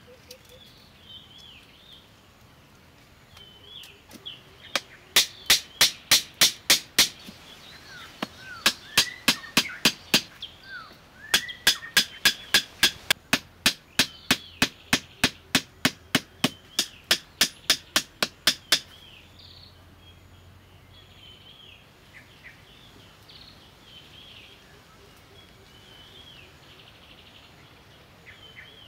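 Hammer blows driving wooden stakes into the ground, about three a second, in three runs with short pauses between them. The last and longest run stops about two-thirds of the way through. Birds chirp throughout.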